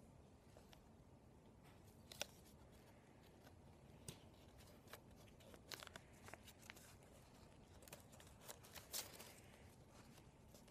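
Sheet of origami paper being folded and creased by hand: faint, scattered crinkles and sharp rustles, the loudest about two seconds in and again about nine seconds in.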